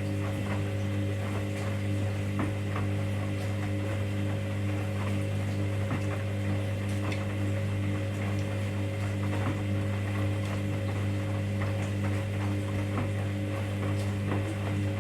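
Hoover DynamicNext washing machine running in the main wash of its baby 60°C programme: a steady low hum with light ticking over it.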